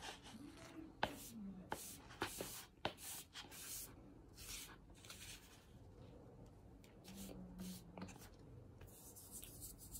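Fingers squeezing and crumbling chunks of compressed cornstarch and baby powder in a plastic tub: a soft, squeaky crunching broken by sharp little crackles. The crackles are loudest about a second in and again two to three seconds in.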